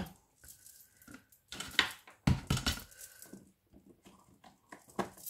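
A clear plastic text stamp being peeled from its plastic backing sheet and handled: crinkling plastic with a few sharp clicks and taps, the loudest about two seconds in.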